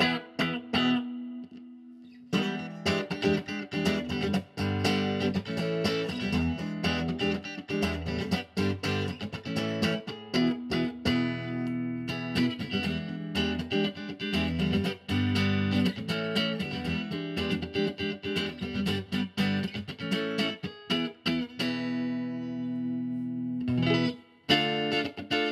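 Tomson Spirit super-strat electric guitar played on a clean amp sound: quick runs of picked single notes and arpeggios, with chords left ringing briefly about a second in, around eleven seconds, and again near the end.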